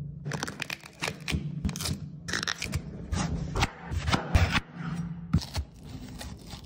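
A chef's knife chopping and scraping into the husk of a young coconut: a quick series of sharp cutting strokes, several a second, over a faint low hum.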